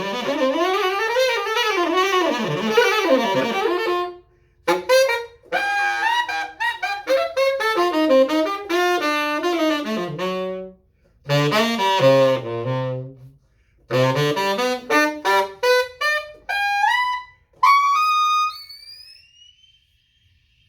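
1950s Martin Committee tenor saxophone, freshly overhauled and repadded with tan pads with flat metal resonators, played solo in fast runs broken into phrases by short pauses. It dips to low notes midway and near the end climbs to a high held note that fades out.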